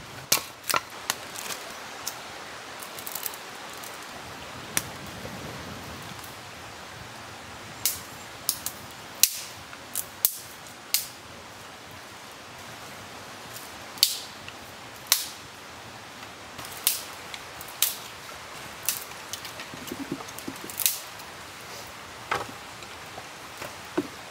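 Campfire of dry dead wood crackling and popping: irregular sharp snaps, a few much louder than the rest, over a steady hiss.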